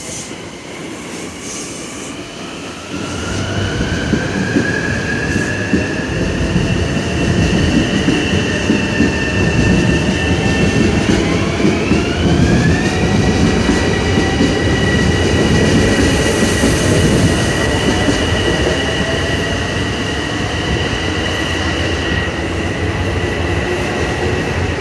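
Electric train pulling through, its traction motors whining and rising in pitch, with a step up about halfway through before the whine holds steady, over a loud rumble of wheels on rails that builds a few seconds in.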